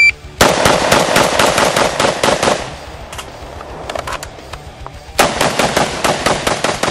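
Saiga 12 12-gauge semi-automatic shotgun fired in fast strings of about six shots a second. About two seconds of rapid fire is followed by a pause of roughly two and a half seconds with a few light clicks as the magazine is changed. A second rapid string starts about five seconds in.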